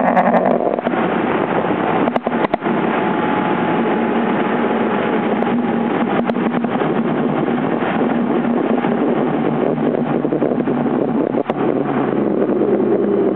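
Road vehicle running at steady cruising speed with wind noise on the microphone: a loud, even drone with a low hum. There are a few brief clicks about two seconds in and again near the end.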